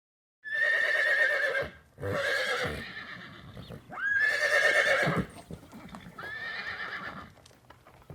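Horse neighing: four whinnies in a row, each a high, quavering call that trails off, the first and third loudest.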